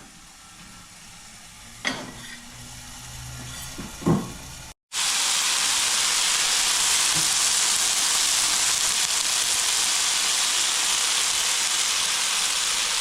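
Chicken curry sizzling in a pan: a quieter stretch with two short knocks, then, after a brief break, a loud, steady sizzle.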